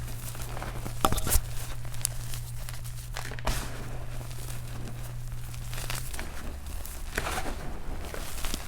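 Soft gym chalk being crumbled by hand: dry crumbling and crackling, with sharper snaps about a second in and again midway. A low steady hum runs underneath and stops about six seconds in.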